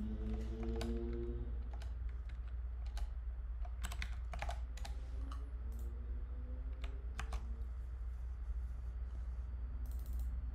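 Keystrokes on a computer keyboard: irregular clicks with pauses between them, as casts are deleted from code and the program is run, over a steady low hum.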